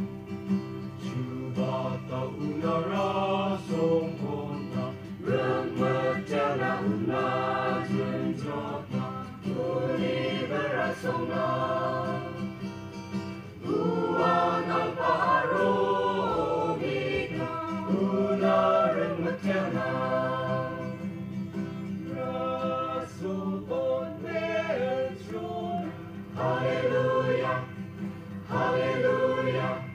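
Mixed choir singing a gospel hymn in Garo, phrase after phrase with short breaks, over steady low tones.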